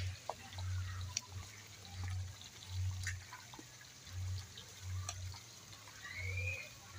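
A spoon stirring a liquid soy-sauce-and-oil marinade in a plastic tub, with sloshing and scattered clicks of the spoon against the plastic. Under it a low hum swells and fades about every 0.7 seconds.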